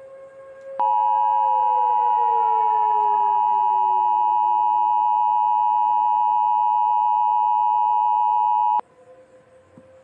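Emergency Alert System two-tone attention signal: a loud, steady dual-tone alarm that starts about a second in and cuts off sharply about eight seconds later, heralding an Emergency Action Notification. Underneath it, a fainter siren winds down, falling in pitch.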